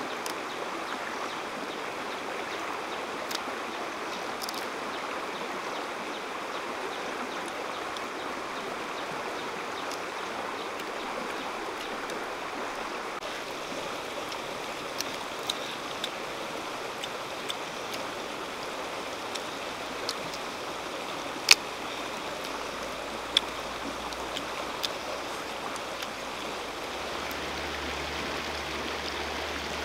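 Steady rushing of a shallow river flowing over stones, with a scattering of sharp small clicks, the loudest about two-thirds of the way through.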